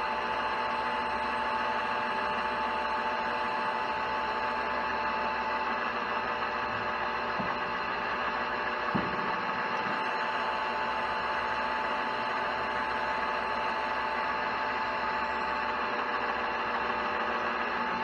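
Metal lathe running steadily while a 15/64-inch twist drill bores a through hole in 360 brass round stock: an even machine whir with several fixed tones held in it.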